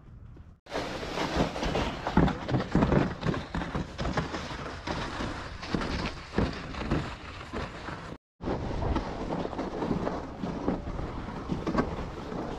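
Strong blizzard wind buffeting the microphone, a loud gusty rumble and hiss, with a brief dropout about eight seconds in.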